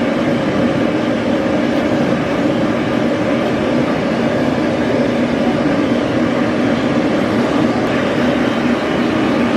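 Dog grooming dryer running steadily, blowing air through its hose nozzle: a loud, even rush of air with a steady low hum beneath it.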